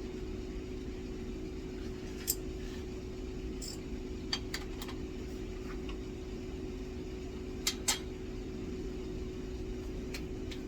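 Steady mechanical hum of shop equipment, with scattered sharp metal clinks and knocks from jig parts being handled, two in quick succession about eight seconds in.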